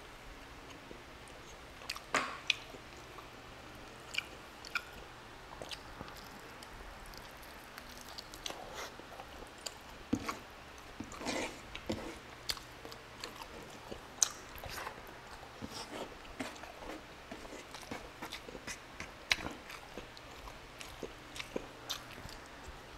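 Close-miked eating by hand: fingers pulling apart tender braised beef and gathering rice, with chewing and lip smacking. The sound comes as irregular short wet clicks and smacks.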